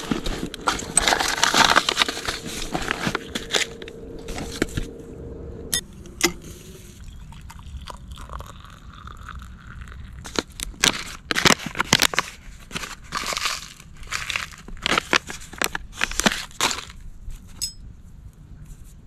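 Irregular crunching and crackling, dense at first, then a quieter stretch, then a run of sharp separate crunches and clicks.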